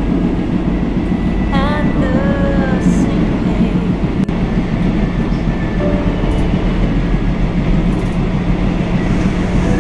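Train running along the track, a steady heavy rumble, with a brief high sliding tone about two seconds in.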